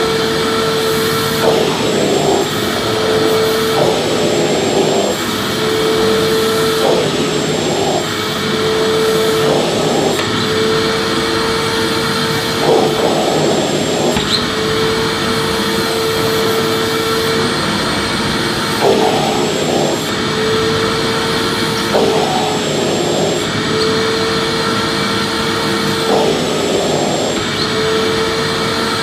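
Vacuum cleaner running continuously: a dense rushing noise with a steady motor hum and a faint high whine. The hum breaks briefly every couple of seconds as the airflow changes.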